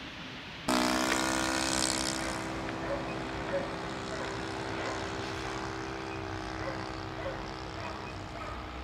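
Radio-controlled model aircraft engine and propeller running at a steady pitch, starting abruptly just under a second in with a hiss that fades over the next couple of seconds.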